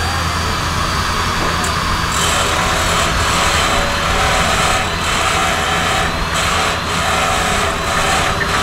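Stationary sawmill running, driven by a 1927 Rumely OilPull Model E: steady machinery noise with a thin high whine, growing a little fuller about two seconds in.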